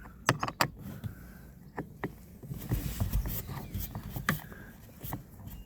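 Phillips screwdriver turning out a small screw in a car's interior door trim: scattered faint clicks and light scrapes.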